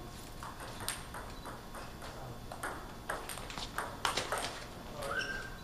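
Table tennis rally: the ball clicks sharply off paddles and the table in a quick back-and-forth, with the hits coming fastest about four seconds in. A short rising squeak comes near the end.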